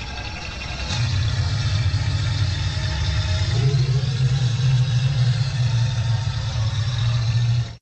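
Custom creature sound effect for a Tyrannosuchus: a low, steady rumble that swells about a second in, holds, and cuts off abruptly near the end.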